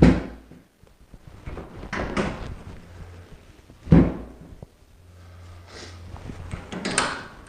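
Two sharp thumps of chiropractic adjustments on a treatment table, one at the start and one about four seconds in, with softer shuffling and creaking of the table and the patient between them.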